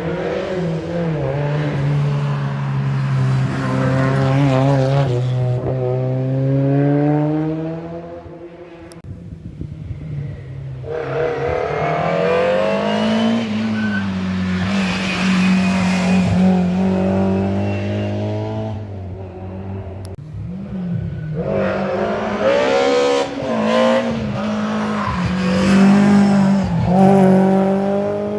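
Historic rally car engines at full throttle on a special stage, revving hard and changing pitch through the gears, easing off briefly twice and pulling hard again.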